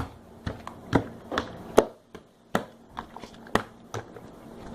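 Slime being kneaded and squeezed by hand, giving a string of sharp, sticky clicks and pops at irregular intervals, roughly two a second.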